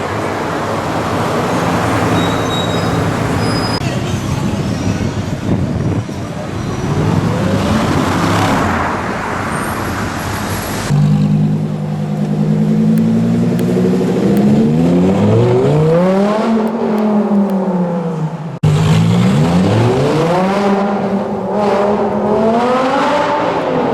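Supercar engines revving and accelerating across a few short clips: first a noisier stretch with a car speeding up, then engines blipped repeatedly, the pitch climbing and falling with each rev.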